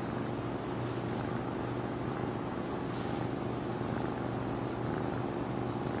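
Sleeping kitten purring steadily, a low continuous rumble that sounds like snoring, with a faint high hiss about once a second.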